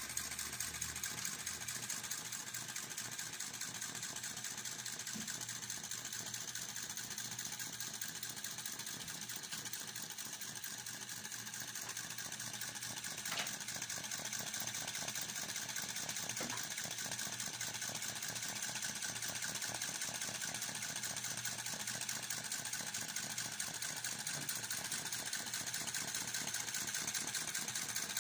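Chinese V2 vacuum (flame-licker) model engine running steadily, a fast, even patter of small mechanical clicks from its valves and pistons, with one slightly sharper tick about halfway through.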